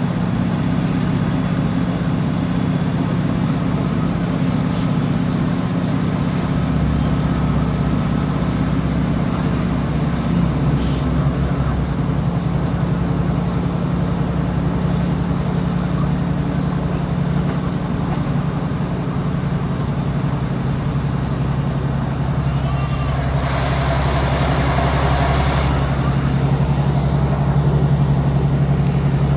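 Inside a Class 156 diesel multiple unit at speed: the steady drone of its underfloor Cummins diesel engine with wheel-on-rail noise, the engine note shifting a couple of times. About three-quarters of the way through, a rushing hiss rises for a couple of seconds, then fades.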